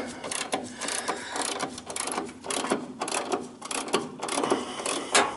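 Ratchet wrench with a hex bit clicking in quick irregular runs as it turns open the stem of a heat pump's brass service (king) valve, with a sharper click near the end.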